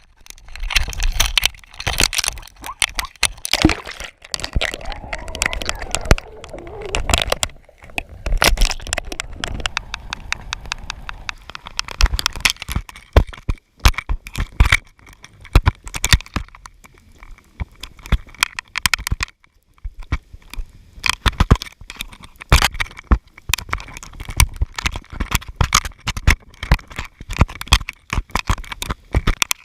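Underwater audio from a GoPro lowered on a line: dense, irregular crackling and sharp clicks, with a low rush of water in the first eight seconds or so and a faint steady high tone from about halfway on.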